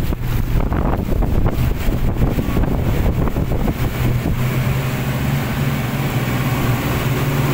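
Twin Yamaha 250 hp four-stroke outboard motors running under way, a steady low engine drone that grows stronger and steadier about halfway through, over wind and rushing water from the wake.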